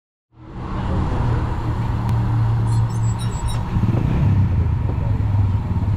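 Winged 305 sprint car's V8 engine idling steadily, heard from the cockpit. It cuts in abruptly a moment after the start.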